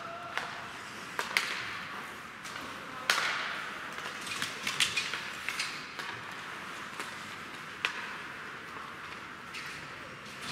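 Ice hockey play: sharp clacks of sticks and puck, the loudest about three seconds in, with a quick run of clacks around five seconds and another near eight seconds, over a steady hiss of skates on the ice.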